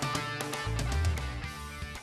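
Instrumental title music led by guitar, with a steady beat.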